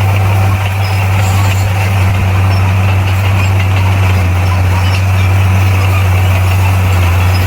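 Heavy earthmoving machine's diesel engine running steadily: a loud, deep drone that holds one pitch throughout.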